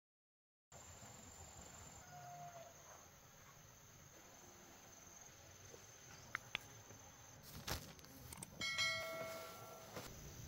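Faint countryside background with a thin, steady, high insect whine, a few sharp clicks partway through, and a short pitched call about nine seconds in, the loudest sound.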